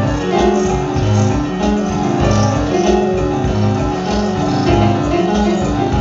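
Live instrumental band playing: electric keyboards carry a repeating low figure, about one phrase a second, with higher piano-like notes over drums.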